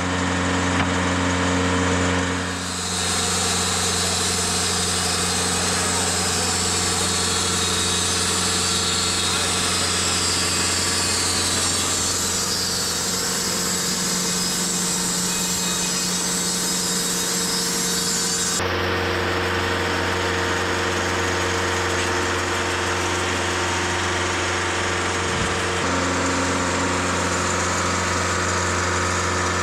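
TimberKing 2520 portable sawmill running steadily, its engine a constant hum. About two and a half seconds in, the blade starts a cut through a log with a loud, hissing saw noise that lasts about sixteen seconds and stops abruptly, leaving the engine running on its own.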